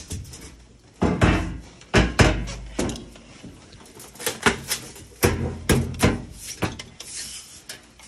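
KitchenAid washing machine's top cover panel being pressed down by hand and popped into its retaining tabs: a series of irregular knocks, clunks and snaps.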